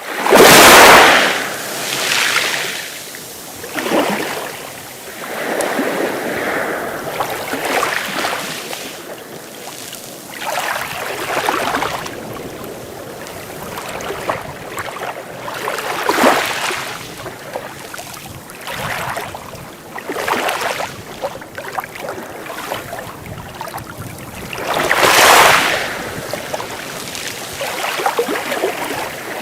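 Sea waves breaking and washing up the shore, each surge of surf swelling and fading every few seconds. The biggest break comes about half a second in, and another large one near the end.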